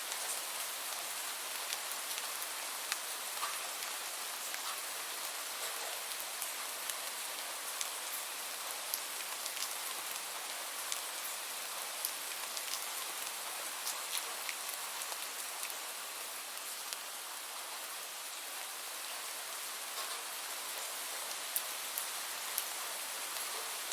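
Steady rain falling, an even hiss with individual drops ticking sharply now and then.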